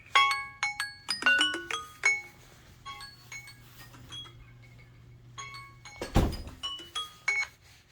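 Samsung phone timer alert ringing: a marimba-like melody of quick struck chiming notes, repeating, with a quieter stretch in the middle. A dull thump about six seconds in.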